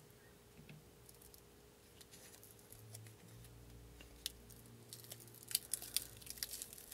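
Faint crackling and crinkling as the adhesive backing is peeled off a rubberized Talon pistol grip and the sticky grip is handled. The crackles start about two seconds in and grow busier and louder toward the end.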